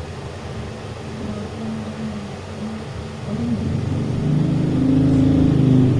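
A man's low, muffled voice, quiet at first and growing louder about three and a half seconds in.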